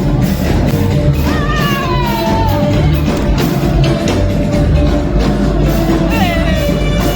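Music with a sung vocal over a steady beat.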